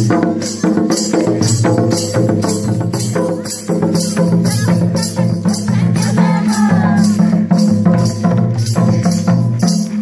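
Santhali folk dance drumming: two-headed barrel drums (madal) beating a steady rhythm of about two to three strokes a second, the deep drum tones stopping just before the end.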